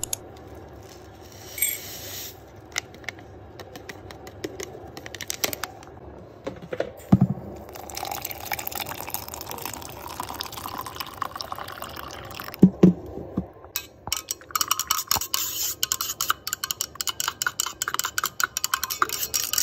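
A few light knocks, then hot water poured from a kettle into a stainless steel tumbler of instant coffee powder. After that a spoon stirs fast, clinking rapidly against the metal sides of the tumbler.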